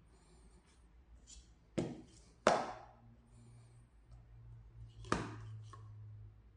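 Blue plastic sport-stacking cups being stacked and unstacked at speed on a mat, with light knocks and clacks. Three sharp clacks stand out, about two seconds in, half a second later (the loudest) and again near five seconds.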